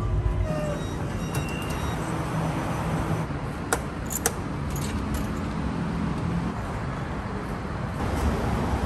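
Rail-station ambience: a steady low rumble, with a few sharp clicks from an MRT fare gate about four seconds in as a token is tapped.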